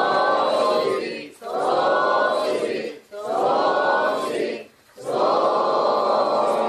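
A group of voices chanting in unison: a short phrase repeated four times with brief breaks between, the last one drawn out longer.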